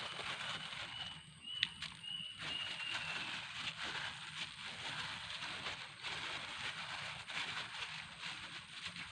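Outdoor ambience: a steady hiss with a faint, thin high whistle broken into short notes for a couple of seconds about a second in, and one sharp click near the middle of that.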